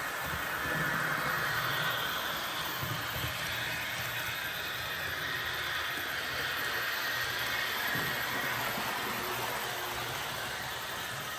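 Model train running: a TRIX BR 146.5 electric locomotive model hauling IC2 double-deck coaches. It makes a continuous hiss over a low hum that swells slightly about a second in and again around eight seconds.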